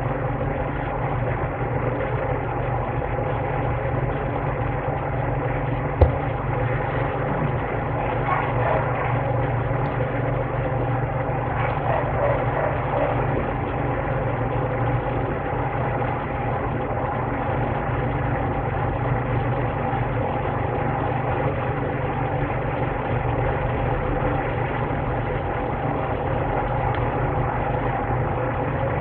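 Steady machine hum at an even level, with a single sharp click about six seconds in.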